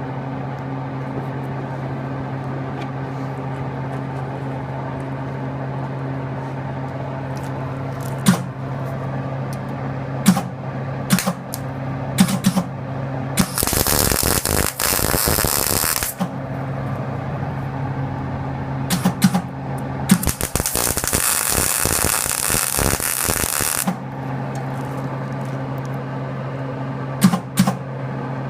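Electric welder at work laying tack welds on a grain drill's steel wheel rim: two crackling bursts of welding arc, one of about two and a half seconds and one of about four seconds, over a steady low electrical hum, with a few clicks and clanks of metal handling between them.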